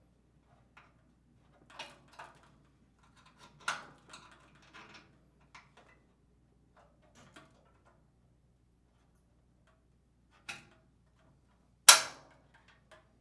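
Flathead screwdriver prying at the plastic retaining tabs of a washer's lid lock assembly: scattered small clicks and scrapes, then two sharp snaps near the end, the second much louder.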